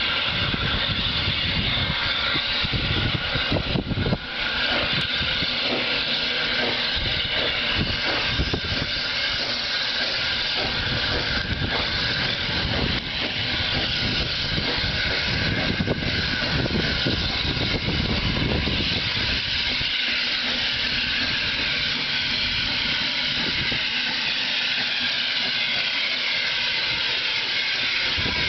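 J94 'Austerity' 0-6-0 saddle tank steam locomotive pulling away with its train at low speed, its exhaust chuffing unevenly over a steady hiss of steam as it comes closer.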